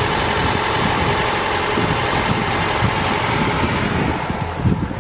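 1999 Honda Civic's four-cylinder engine running at idle, cold and not yet warmed up, on one of its first runs after a head gasket replacement. The sound turns a little duller and quieter near the end.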